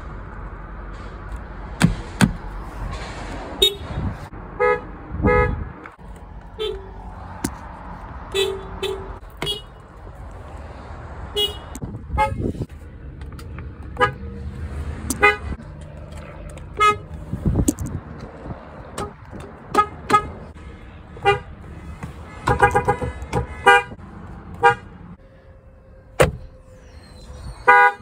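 Car horns of several Japanese cars, among them a Mazda's and a Toyota's, sounded in short toots: some single beeps, some in quick runs of several, the densest run near the end. A few knocks fall between them.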